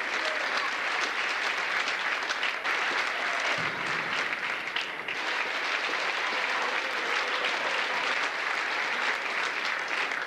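A crowd applauding, many hands clapping at a steady level.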